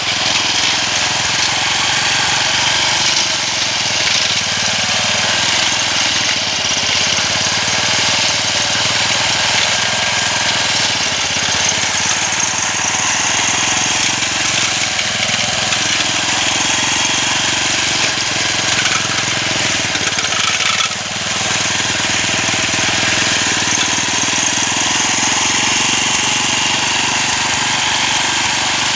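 Small engine of a homemade push-type grass cutter running steadily while cutting grass, with a brief drop in level about twenty-one seconds in.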